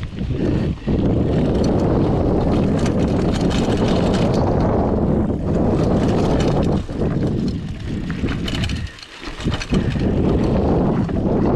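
Specialized Rockhopper 29er mountain bike ridden fast on a dirt trail: steady wind and tyre noise on a GoPro microphone, with frequent rattles and clacks from the bike over bumps. The noise drops briefly about nine seconds in.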